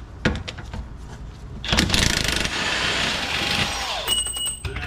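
Impact wrench running for about two seconds as it spins a bolt loose, winding down with a falling whine, then a short burst of rapid pulses near the end. A few sharp metal clicks come first, as the socket goes on.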